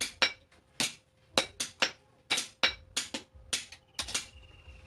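Blacksmith's hand hammer forging metal on an anvil: a steady run of sharp, ringing metallic blows, about three a second and often in quick pairs.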